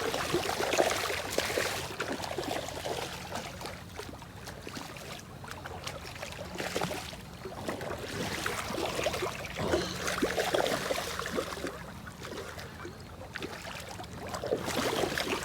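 Shallow creek water rushing, with irregular splashing and sloshing while a hooked steelhead is fought in the water. The splashing is louder about a second in and again around ten seconds in.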